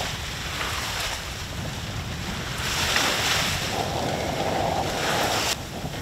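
Wind buffeting the microphone and water rushing past the hull of a sailboat heeling under sail in a fresh breeze, with a louder surge of rushing water about halfway through as a wave passes. The sound drops abruptly near the end.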